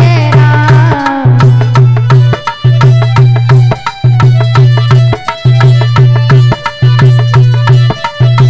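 Devotional bhajan accompaniment: hand drums keep a quick, even rhythm over held melody notes and a loud deep bass note that breaks off about every second. A woman's sung line ends about a second in.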